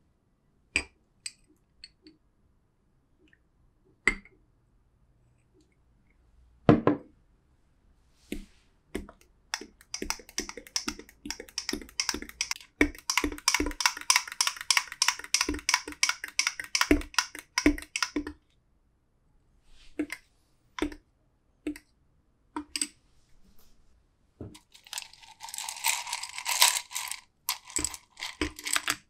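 A metal teaspoon stirs a smoothie in a tall drinking glass, clinking rapidly against the glass for several seconds. Before that come scattered single clinks and one louder knock. Near the end, ice cubes rattle and clink in a glass bowl as a spoon scoops them.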